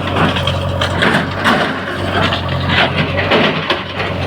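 Bulldozer's diesel engine running with a steady low drone, over a string of irregular knocks and crashes, a few each second, as a house is demolished.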